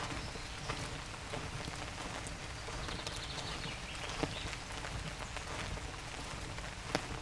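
Light summer rain in a forest: a steady patter with single drops tapping close by. A faint, high, quick chirping, likely a small bird, comes in briefly about three seconds in.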